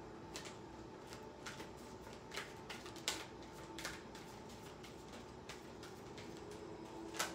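A deck of cards being shuffled overhand by hand: a run of soft, irregular clicks as the cards slip off the pack, with a sharper one near the end.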